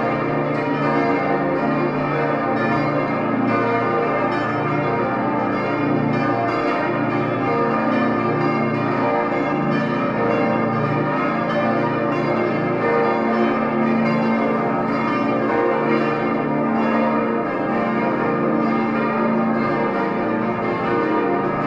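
The full peal of the Herrenberg Stiftskirche: twenty swinging church bells ringing together at the same time, in a dense, unbroken wash of overlapping strokes at a steady loudness.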